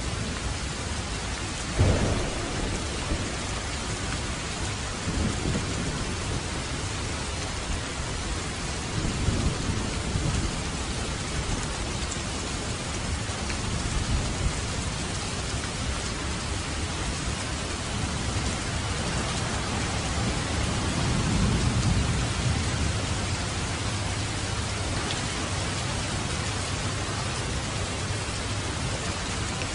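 Heavy rain pouring steadily, with a sharp clap of thunder about two seconds in and low rolls of thunder rumbling a few times after, the longest about two-thirds of the way through.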